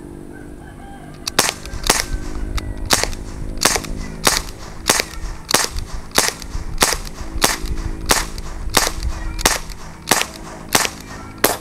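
Daisy Powerline 5501 CO2 blowback BB pistol fired rapidly: some fifteen sharp shots, about one every two-thirds of a second, starting a little over a second in, emptying the magazine.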